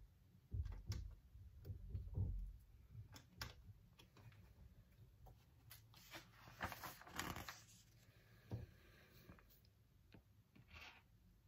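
Faint handling of small plastic building-brick pieces on a desk: scattered sharp clicks as parts are picked up and pressed together, soft knocks in the first few seconds and a brief rustling scrape about halfway through.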